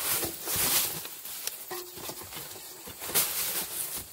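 Rustling and knocking of stored items being rummaged through and pulled about in a car, in irregular bursts, the strongest about half a second in and just after three seconds.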